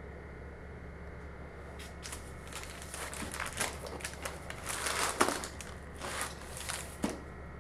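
Baking paper crinkling and rustling as a baked pizza is lifted and handled on it: a run of uneven crackly rustles starting about two seconds in, loudest around the middle, ending with a sharp crackle near the end.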